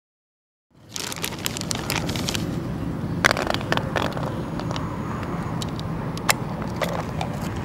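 Sharp plastic clicks and rattles from red plastic fishing tackle being handled, over a steady low outdoor rumble; the sound cuts in abruptly about a second in.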